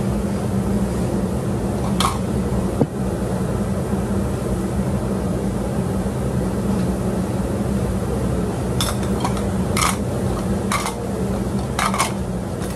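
Steady hum of a kitchen appliance's motor, with light clinks of dishes or utensils about two seconds in and several more near the end.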